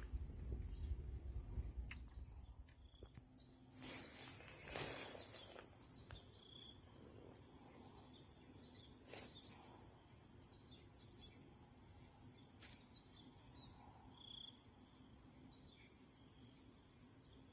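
Steady, high-pitched chorus of insects, growing louder about four seconds in, with a few brief faint rustles or knocks.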